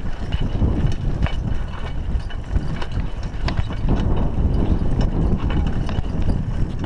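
Raleigh Ascent mountain bike rolling over a rough dirt road: tyres crunching on the gravelly surface and the frame and chain rattling and knocking irregularly over the bumps, over a steady low rumble.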